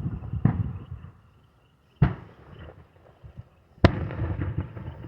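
Fireworks bursting: three sharp bangs about a second and a half apart, the last the loudest, each trailing off in a low rumble.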